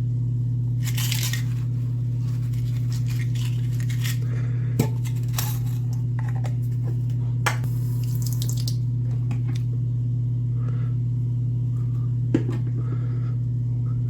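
Small hard parts of a vintage calculator clicking and clattering, with short hissing and scrubbing noises, as they are washed. Three sharp clicks stand out, about five, seven and a half, and twelve seconds in. A steady low hum runs underneath throughout.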